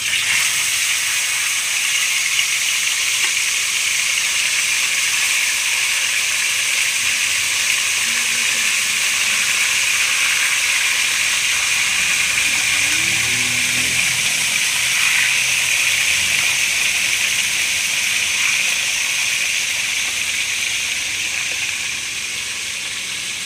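Split, vinegar-marinated milkfish (daing na bangus) frying in hot oil in a wok, a loud, steady sizzle.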